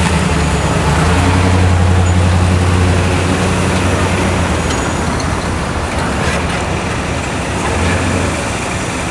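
Road traffic: a vehicle's engine running close by with a steady low hum, loudest in the first few seconds and fading about halfway through, over general roadway noise.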